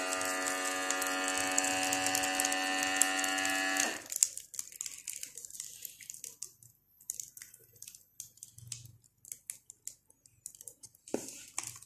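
Lucario vacuum sealer's pump motor running with a steady hum as it draws the air out of the bag, cutting off abruptly about four seconds in as the machine moves on to heat-sealing automatically. After that, only faint scattered clicks and crackles.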